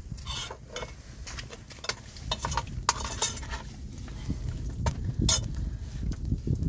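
A cast-iron pan set down and shifted on hot embers and ash, with scattered metal clinks and scrapes.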